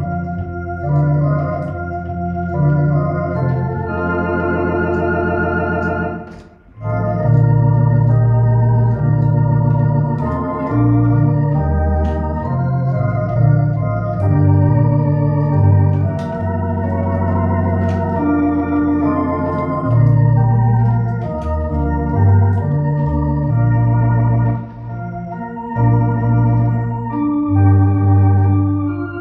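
Electronic organ playing a slow piece in sustained chords, with a wavering vibrato on the held notes and deep bass notes played on the pedalboard. There is a brief gap about six seconds in.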